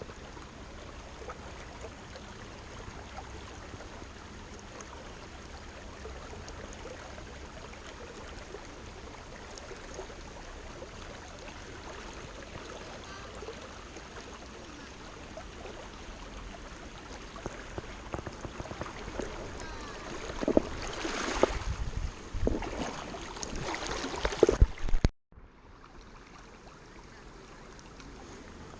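River water flowing steadily over a shallow stream bed. Near the end, louder irregular knocks and rustles close by take over for several seconds, then cut off suddenly before the quieter flow resumes.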